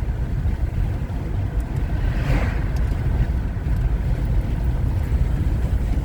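Steady low road and engine rumble heard from inside a moving car's cabin, with a brief faint sound about two seconds in.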